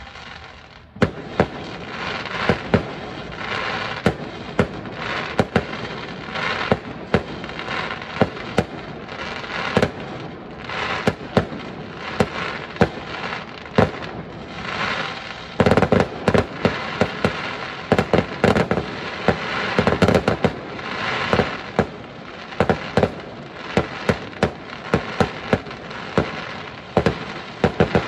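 Fireworks display: a rapid, irregular stream of sharp bangs from bursting shells over a continuous noisy din. It grows denser and louder about halfway through.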